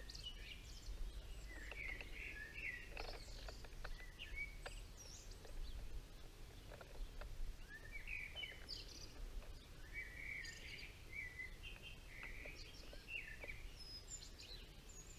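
Several songbirds singing in a dawn chorus, with many short chirps and warbled phrases, over a faint steady low rumble.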